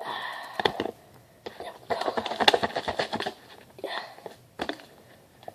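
A utensil stirring ramen noodles in a bowl to mix in the chicken seasoning: a quick run of small clicks and scrapes, busiest in the middle.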